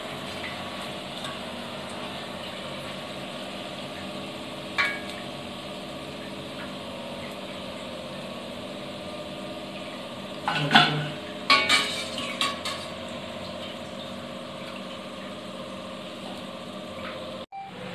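A perforated stainless-steel skimmer clinks and scrapes against a steel frying pot and plate while the ribbon pakoda is lifted out and drained. A single sharp clink comes about five seconds in, and a cluster of louder clinks follows between ten and thirteen seconds. A steady low hiss and hum runs underneath.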